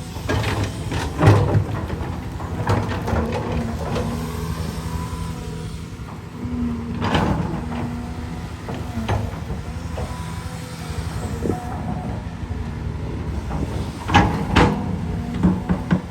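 Heavy diesel engine running steadily, with several sharp metallic clanks and hisses breaking in at intervals, a few of them close together near the end.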